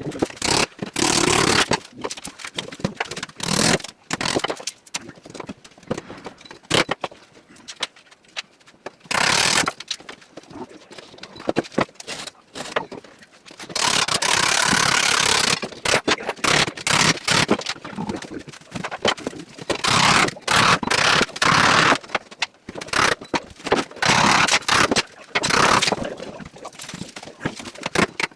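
Carpentry work noise in short irregular bursts of scraping and tool noise, the longest lasting about two seconds midway.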